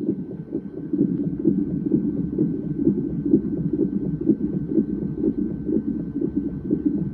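Fetal heart monitor's Doppler ultrasound playing the unborn baby's heartbeat as a fast, regular pulsing, at about 128 beats a minute.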